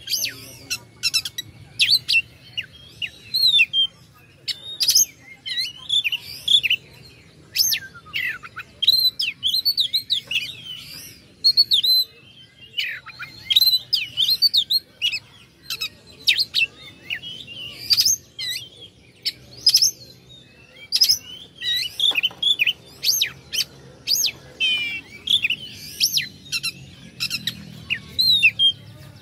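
Oriental magpie-robin (kacer) singing a fast, varied song of sharp chips, slurred whistles and quick rising and falling notes, with hardly a pause.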